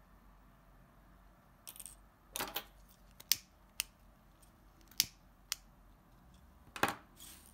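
A lighter being sparked: a few sharp clicks from about three seconds in, after soft rustling of hands handling the fabric.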